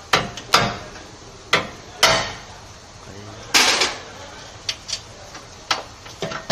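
Irregular hammer knocks on sheet metal, about eight strikes, some with a short metallic ring.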